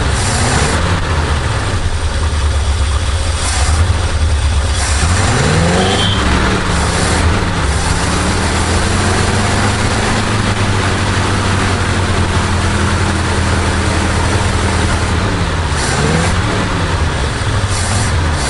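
Chevrolet C60 truck engine with a freshly rebuilt carburetor running steadily, its pitch rising and falling a few times.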